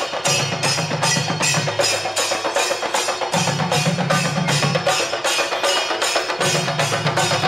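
Singari melam percussion: chenda drums beaten with sticks and clashing ilathalam cymbals in a fast, steady beat of about four to five strokes a second. A deeper drum part comes in three times, each for about a second and a half.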